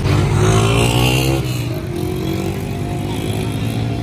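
Road traffic: a motor vehicle passes close by in the first second and a half, its engine note falling as it goes past, over a steady low engine hum.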